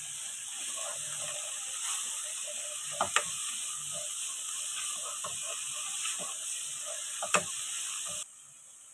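Sliced vegetables (onion, cabbage, capsicum and carrot) sizzling steadily in a hot pan as they are sautéed, with a spatula clinking against the pan twice. The sizzle cuts off abruptly near the end.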